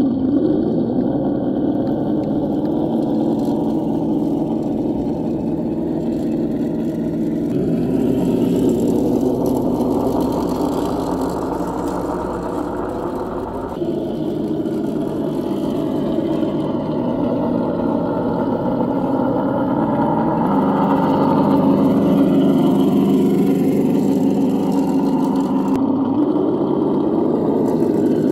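Simulated V8 engine sound from an RC crawler's sound module, running at low revs and rising and falling in pitch. It changes abruptly three times where the footage is cut.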